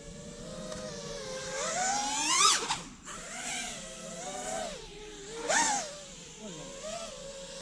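A 5-inch FPV quadcopter's brushless motors whining, with the pitch swinging sharply up and dropping twice, about two and a half and five and a half seconds in, as the throttle is punched and cut.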